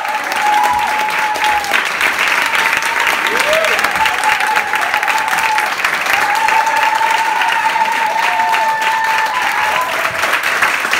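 Audience applauding steadily, with long held cheering voices over the clapping.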